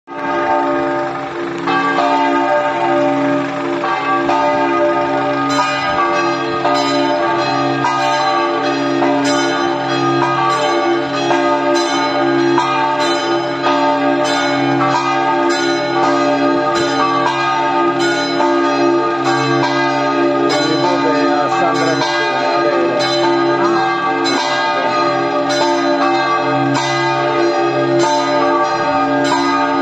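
Church tower bells ringing a festive peal: several bells sounding together, their tones ringing on and overlapping. From about five seconds in, the strikes come at a steady pace of about two a second.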